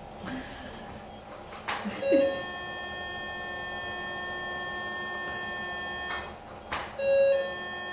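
Operating-room electronic equipment: a short beep about two seconds in and again about five seconds later, each with a sharp click. Between and after the beeps runs a steady electrical whine of several high tones.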